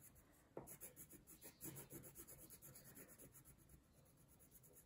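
Faint scratching of a yellow crayon on paper as a bee drawing is coloured in: a quick run of short back-and-forth strokes, a few a second, that dies away about three and a half seconds in.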